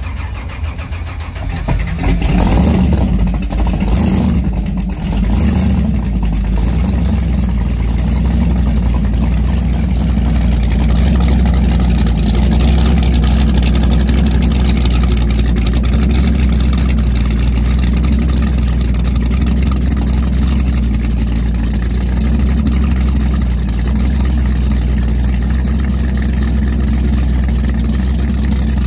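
The 1000 HP engine of a 1980 Martini powerboat cranking, catching about two seconds in and revving for a few seconds. It then settles into a loud, steady, deep idle.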